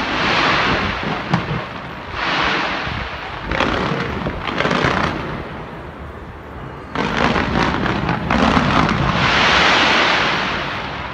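Fireworks fired from the Taipei 101 skyscraper: rapid bangs and crackling in surges a second or two long, the loudest stretch near the end.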